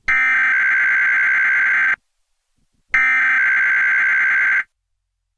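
Emergency Alert System SAME header: two bursts of digital data tones, each just under two seconds long and about a second apart, the coded header that opens a Required Monthly Test.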